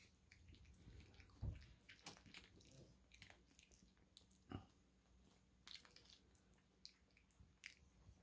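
Faint wet mouth sounds and soft clicks from a pug and a pug puppy nosing and mouthing at each other's faces, with two soft low thumps, one about a second and a half in and one about four and a half seconds in.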